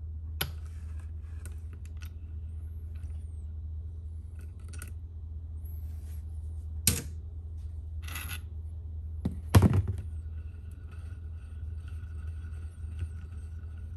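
Metal clicks and clinks from a lever-type valve spring compressor and small valve-train parts being handled on an aluminum cylinder head, with two sharp clanks about halfway and two-thirds of the way through, over a steady low hum.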